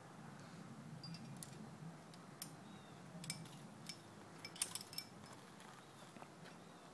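Aluminium quickdraw carabiners and the climbing rack on a harness clinking in a run of faint metallic clicks. The sharpest cluster comes about four and a half to five seconds in, as the quickdraw is clipped onto a bolt hanger.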